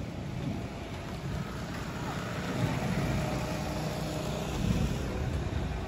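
Thunder rumbling low and rolling on, swelling twice, about three and five seconds in.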